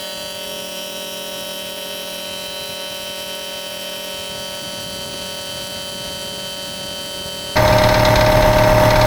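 Electric shop air compressor running steadily, pumping its tank back up toward its 155 psi cut-out with a newly fitted pressure switch; it runs smoothly, which the owner calls the way it should sound. It gets abruptly much louder about seven and a half seconds in.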